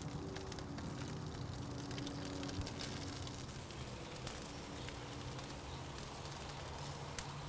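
Faint, steady sizzle and hiss of a pork loin on a hot ceramic grill's grate as a honey glaze is brushed on, with a few small pops.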